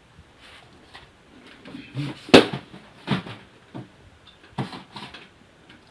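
Knocks and clatters of small hard objects being handled and set down, several separate strikes, the loudest about two seconds in.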